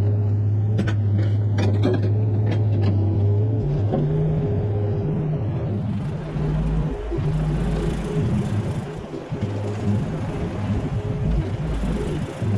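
Mini excavator engine running, steady at first and then wavering and shifting as the machine works. A few sharp knocks come in the first three seconds.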